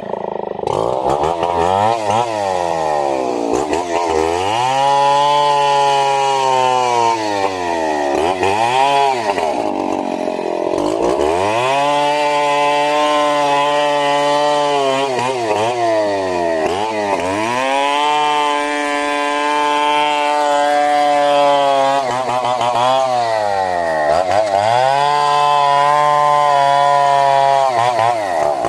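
Chainsaw engine running hard and cutting wood. Its pitch sags and climbs back up about five times as the revs drop and recover.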